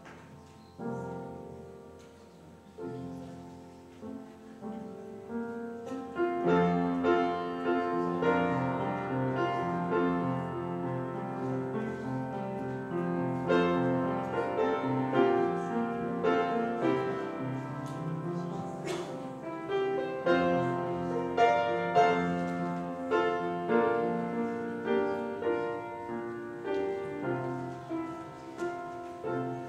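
Piano playing a slow instrumental piece, single notes at first and fuller chords from about six seconds in.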